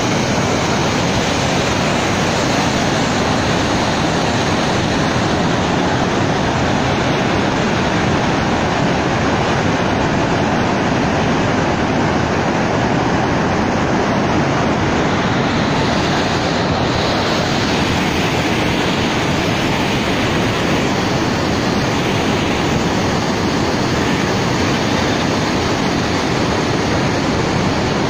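Floodwater pouring through a dam's open spillway gates and churning below: a loud, steady rushing of water.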